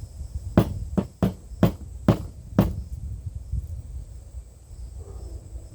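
Six sharp knocks within about two seconds: a spice container being banged against something hard to break up spice that has caked solid inside it.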